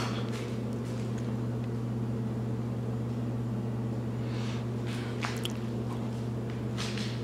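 Steady low hum throughout, with a few brief soft swishing handling sounds about four and a half, five and seven seconds in as a Sachtler Video 20 tripod fluid head is panned by its pan bar.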